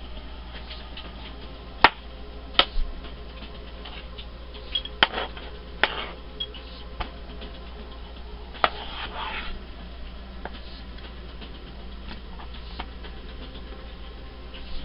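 Kitchen knife slicing red potatoes and knocking down onto a white cutting board: a handful of sharp, irregularly spaced knocks with quieter scraping between them.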